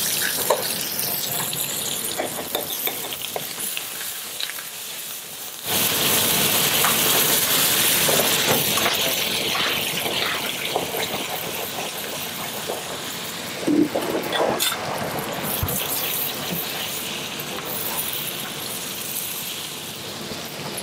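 Butter and meat juices sizzling steadily in a frying pan around a seared roe deer loin with garlic and herbs; the sizzle grows louder about six seconds in, and a few short knocks of a spoon on the pan come later.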